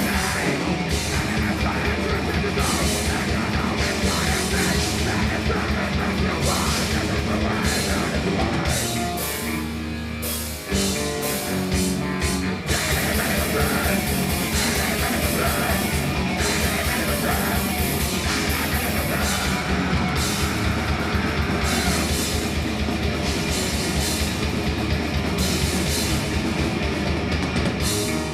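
Thrash metal band playing live and loud: distorted electric guitars, bass and fast drumming. About nine seconds in the sound thins out for a few seconds, leaving mostly the guitar riff, then the full band comes back in.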